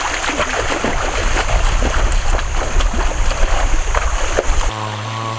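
Bare feet splashing through a shallow, rocky stream as someone runs and wades, a quick run of sharp splashes over the rush of water. Near the end it cuts abruptly to music with a steady held tone.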